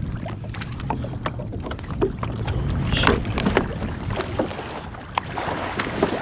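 Water splashing and sloshing around a kayak at sea, with short knocks and a louder splash about three seconds in, over a steady low rumble of wind on the microphone.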